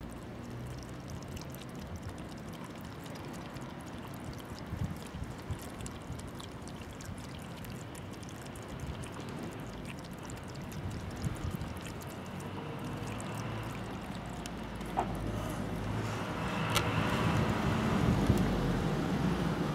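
Cats licking a sheet of ice on a water tank, small wet clicks of tongues on the ice over steady outdoor noise. In the last few seconds the ice sheet is lifted out of the water, with a sharp click and water trickling off it, and the sound grows louder.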